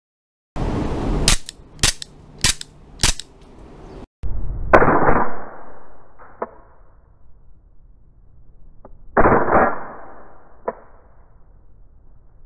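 Stark Arms G17 Gen4 gas-blowback airsoft pistol firing. Four sharp shots come about half a second apart, then after a short break a few slower single shots with lighter clicks between. The pistol is cycling smoothly after its hammer and springs were replaced.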